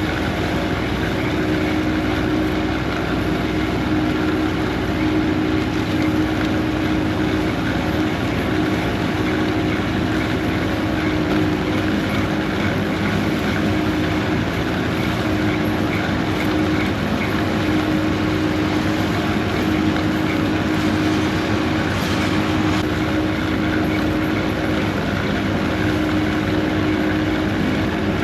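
Heavy diesel machinery running steadily under constant load, a continuous even engine drone with a steady hum and no changes in speed.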